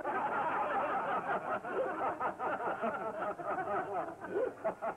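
A crowd of men laughing together, many voices overlapping.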